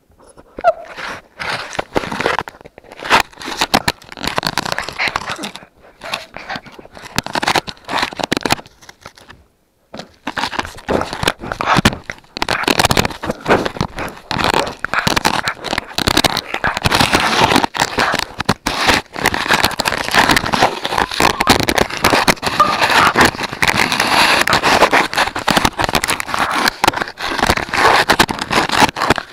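Puppies chewing and dragging an action camera, heard as close crackling and scraping right on its microphone. It breaks off briefly about ten seconds in, then comes back denser and steadier.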